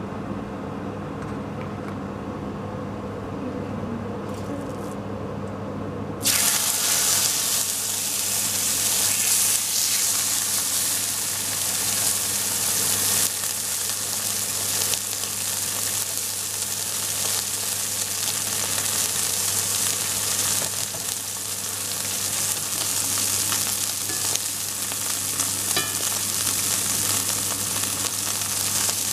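Raw steak laid into a hot, oiled cast-iron skillet about six seconds in: a loud sizzle starts at once and keeps going steadily as the meat sears. Before that, only a steady low hum.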